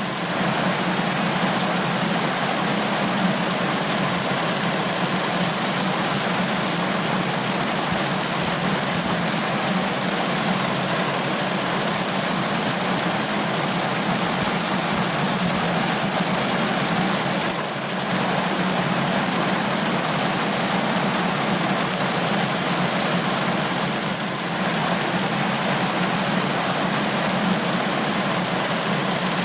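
Steady, heavy rain falling as an even, dense hiss, with two brief dips in level in the second half.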